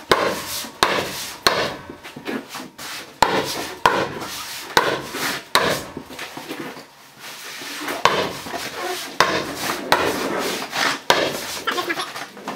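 Hammer striking at irregular intervals, about once a second, fastening tar paper to a wooden wall, with the paper rustling and rubbing between blows.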